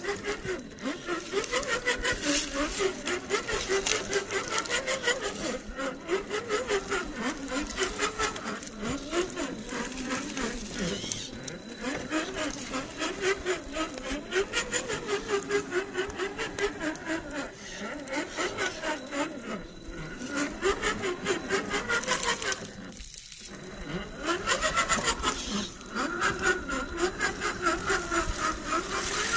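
Scale RC rock crawler's 550-size brushed electric motor and metal drivetrain whining and rasping as it crawls over rocks, the pitch wavering up and down with the throttle. It stops briefly about three-quarters of the way through, then starts again.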